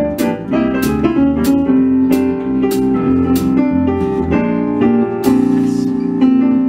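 Roland RD-700 stage piano playing jazz chords and melody with an electric bass underneath, in a swing duo. A light tick keeps time a couple of times a second.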